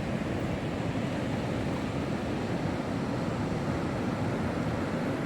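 Steady rush of water from river rapids, an even, unbroken roar.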